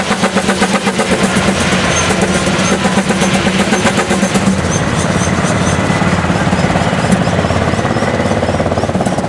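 Case steam traction engine's exhaust chuffing from the stack in quick, even beats, about five a second, as it works driving a belted sawmill. The beats blend into a steadier, denser rhythm from about halfway.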